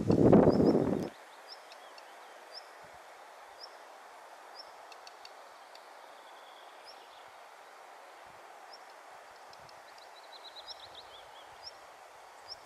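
A loud low rush of wind noise for about the first second, cutting off abruptly. Then quiet open-air ambience, with a small bird repeating short high chirps and giving a brief falling trill near the end.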